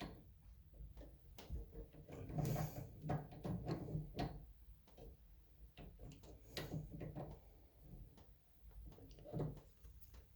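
Faint, irregular clicks, knocks and creaks of a tool being turned with a wrench on a stuck shower valve cartridge to work it loose.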